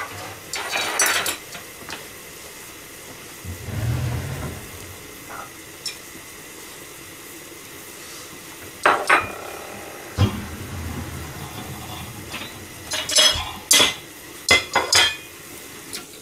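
Pot-au-feu and egg sizzling under the lid of a small aluminium pan over a high gas flame. Sharp metallic clatters break in about a second in, again near the middle, and in a cluster near the end.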